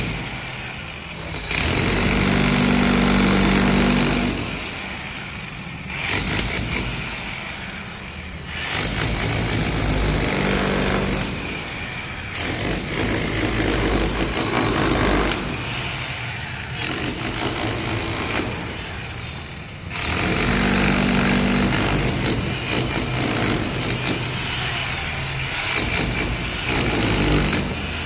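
Ralli Wolf RW-5HE 1200 W, 5 kg electric demolition hammer breaking concrete. It runs in repeated bursts of a few seconds with short pauses between.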